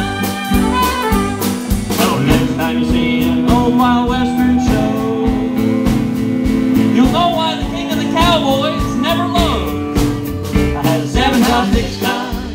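Live country band playing an instrumental break in a western swing song, with fiddle, acoustic guitar and drums. A note is held for several seconds, then a wavering melody follows over a steady beat.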